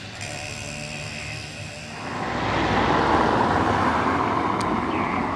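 A tram approaching close by: a rumble that swells from about two seconds in and then holds steady and loud.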